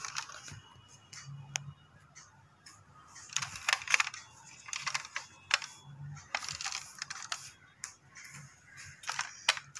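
Scattered light clicks and rustles of a plastic toy car being handled by hand and set down on a rug.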